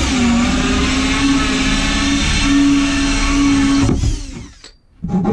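Power drill driving a 2-inch hole saw through a drawer front, running at a steady speed, then released about four seconds in and spinning down to a stop. Just before the end, rapid strokes of a rasp on the cut edge begin.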